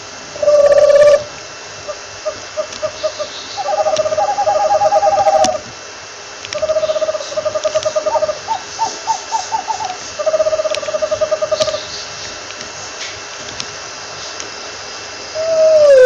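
An owl calls in a series of trilled hoots, some held for about a second and others broken into quick pulses of about four a second. Near the end a falling, whinny-like call begins.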